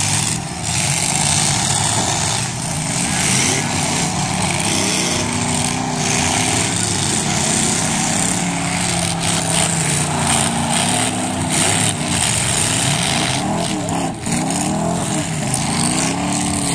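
Engines of several full-size demolition derby cars running hard and revving, their pitches rising and falling over one another, under a loud steady roar.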